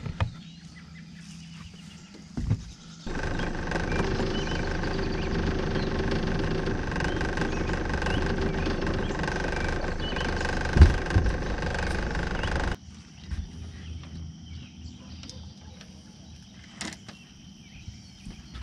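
Boat motor running steadily with a whine, starting about three seconds in and cutting off suddenly near the end. Before and after it, insects chirp faintly.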